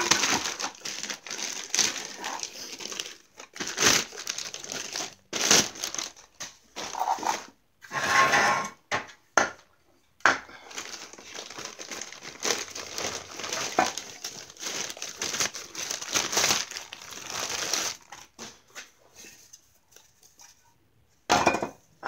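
Plastic bag packaging crinkling and rustling as it is handled and pulled off new exhaust parts, in irregular bursts that thin out near the end.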